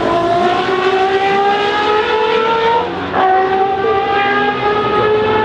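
Historic racing car engine at full throttle, pitch climbing steadily, then an upshift about three seconds in and the revs climbing again from lower down.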